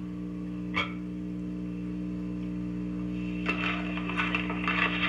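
Steady low electrical hum on the recording, with a short click about a second in and faint, indistinct scattered noise from about three and a half seconds on.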